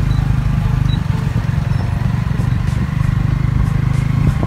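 Motor vehicle engine running steadily: a low, even hum over road rumble.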